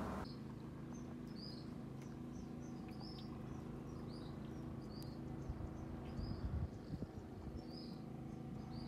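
A small bird chirping over and over, short high chirps about once a second, over a steady low drone. A few soft knocks come about halfway through.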